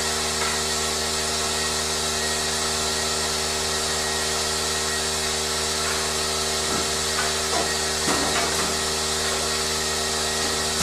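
Machinery running steadily: an even hum with a strong hiss over it, and a few faint short sounds about seven to nine seconds in.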